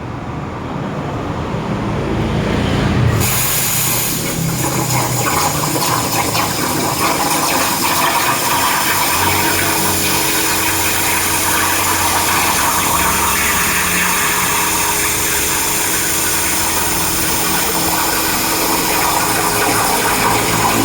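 CNC plate-cutting machine running on a steel plate: a steady hiss that grows louder about three seconds in, with a faint steady hum joining about nine seconds in.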